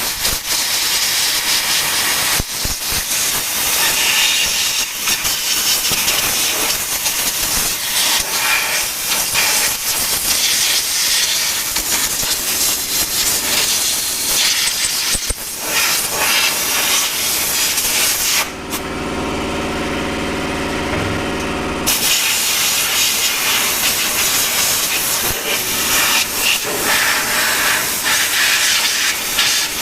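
Compressed-air blow gun hissing loudly as air is blown around the carburetor of a John Deere 425 lawn tractor to clear dirt before carb cleaning. The hiss starts abruptly and gives way to a lower steady hum for about three seconds past the middle, then resumes.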